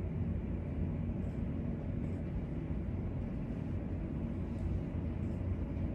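Steady low background rumble of room noise, with no distinct event.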